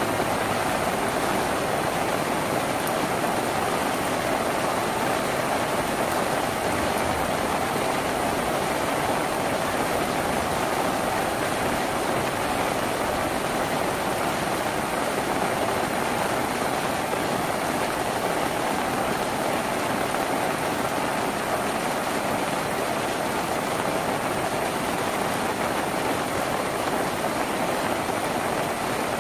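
Steady heavy rain drumming on a tin roof, an even, unbroken hiss with no separate drops standing out.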